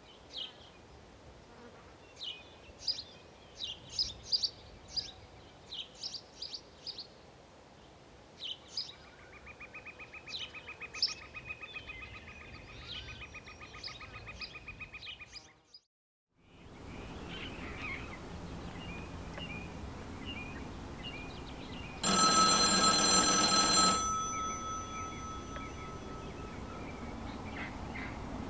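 A payphone ringing once: a single loud ring lasting about two seconds, about two-thirds of the way in. Before it come scattered high chirps and a steady buzzing trill, then a brief dropout to silence.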